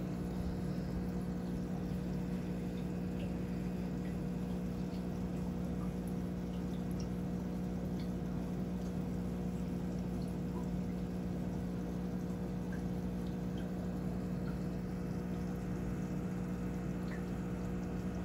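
Aquarium filter running: a steady low hum with a faint trickle of water and a few soft ticks.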